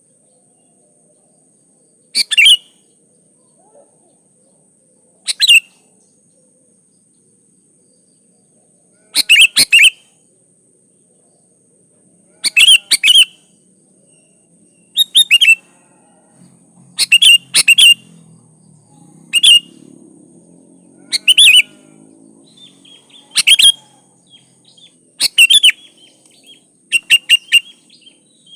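Sooty-headed bulbul (kutilang) calling: short, loud bursts of two to four quick whistled notes, repeated every two or three seconds and coming more often in the second half.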